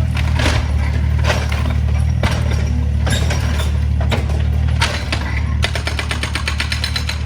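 Excavator diesel engine running steadily under irregular cracks and crashes of a house being broken apart. A fast rattling clatter comes in for the last couple of seconds.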